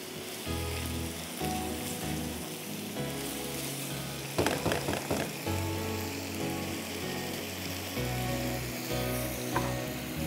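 Thin strips of marinated beef frying in a frying pan, a steady sizzle throughout, with a brief scraping clatter of stirring about four and a half seconds in.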